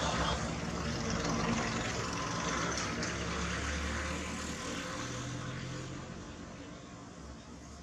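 Engine noise of a motor vehicle going by, a steady low drone that fades away toward the end.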